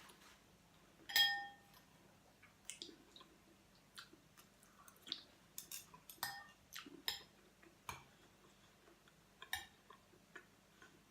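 A utensil clinks against a dish about a second in, ringing briefly, followed by faint scattered clicks and small eating noises.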